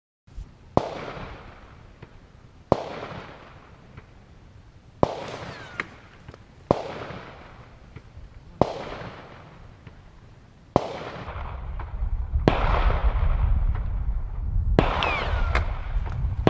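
A string of sharp bangs, roughly one every two seconds, each trailing off. A low rumble comes in under them from about two-thirds of the way through.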